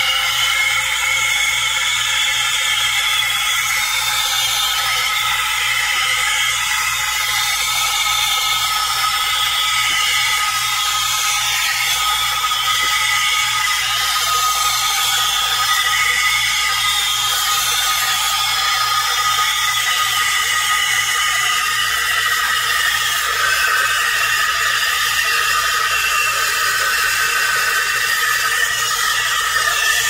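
Steam wand of a Galanz 2-in-1 pump espresso machine frothing milk: a steady, loud hiss laced with high-pitched whistling tones as steam is injected into the milk, over a low hum.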